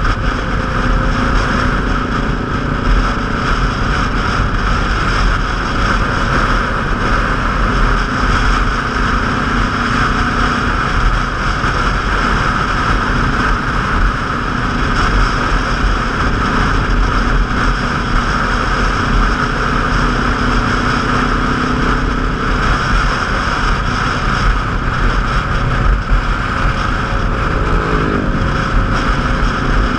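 Motorcycle riding at speed: a steady rush of wind over the microphone on top of the engine's low drone. Near the end, the engine note falls briefly as the bike slows.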